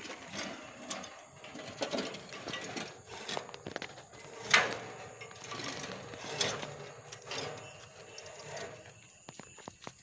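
Manual two-row paddy transplanter turned by hand: its chain drive and planting-finger mechanism clicking and clattering as it rotates, with a louder knock about four and a half seconds in.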